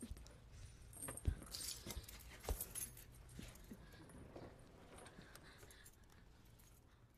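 Faint metallic jangling and clinking, with two soft knocks, the first about a second in and the second about two and a half seconds in.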